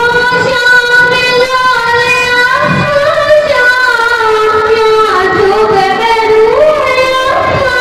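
A girl singing a naat solo into a microphone, holding long notes that glide slowly up and down in a devotional melody.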